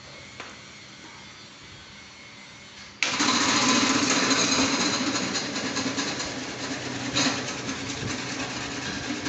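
Electric slicing machine with a belt-driven blade disc: a faint hum, then about three seconds in it suddenly gets loud and runs with a steady whirring, easing off slightly toward the end.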